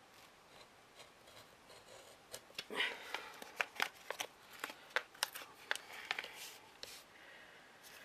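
Craft knife cutting through chipboard in a run of short, sharp, irregular cuts and scrapes, a dozen or more starting about two seconds in, as a circular hole is worked out of the board. The board rustles as it is handled.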